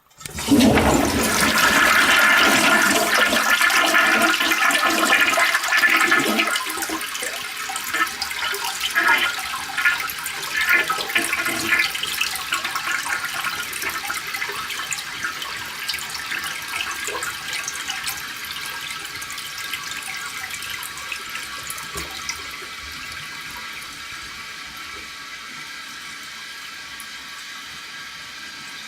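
1961 Kilgore (Briggs) toilet flushing: a sudden loud rush of water for about six seconds, then a softer flow with scattered gurgles that slowly fades. A sluggish flush that never fully drains the bowl on its own without a plunger.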